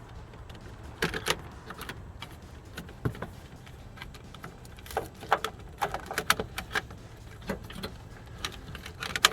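Scattered clicks, taps and light rattles of plastic door trim being worked loose and slid off the inside of a 1982–92 Camaro door, over a low steady background hum.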